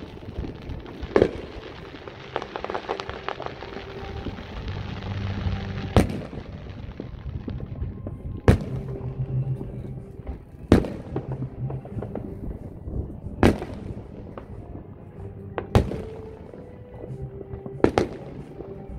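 Aerial fireworks shells bursting, with about seven sharp booms coming roughly every two to three seconds and a few smaller pops early on. Music plays underneath.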